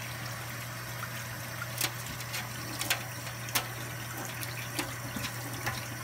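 Thin stream of tap water running into a stainless steel sink while an African grey parrot bathes under it, with five or six sharp ticks scattered through.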